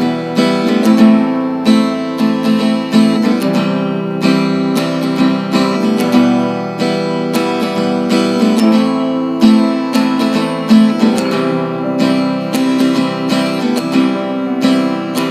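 Acoustic guitar strummed in a steady rhythm, chord after chord, as an instrumental break in a song.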